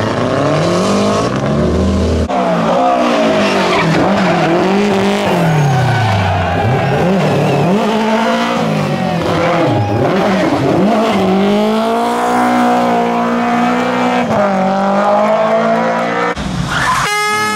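Historic rally car engines at full throttle, pitch climbing and dropping again and again as the drivers work up and down the gears, with some tyre squeal. The sound changes abruptly a couple of times as it cuts from one car to the next.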